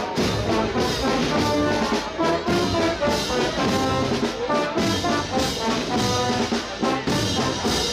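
Brass band playing a processional march, with trombones and trumpets carrying the melody.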